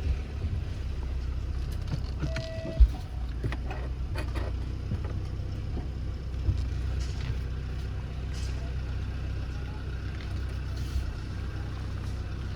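Car engine and drivetrain running at low speed, heard from inside the cabin as a steady low rumble. A short beep sounds a little over two seconds in, and a single sharp knock comes just before three seconds in.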